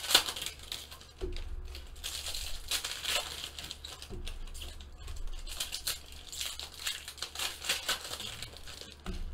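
Foil wrapper of a 2015 Panini Prism baseball card pack crinkling irregularly as it is handled and opened, with cards rustling against each other.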